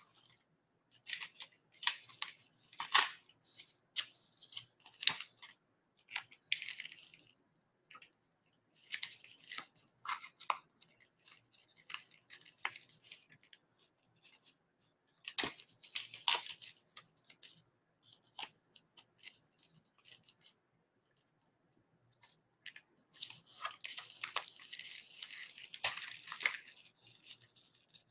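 Blue painter's tape being torn into short strips and pressed down on folded black plastic sheeting: short ripping and crinkling noises with pauses between them. The crinkling comes thicker and steadier near the end as the plastic is smoothed flat by hand.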